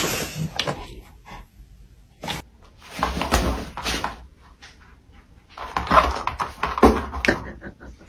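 Dog sounds indoors: a sharp noise at the start, then two noisy stretches of about a second each, one about three seconds in and one near the end, with scattered clicks and knocks between.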